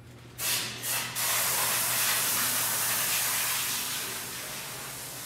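A loud hiss: two short bursts, then a steady hiss for about three seconds that slowly fades.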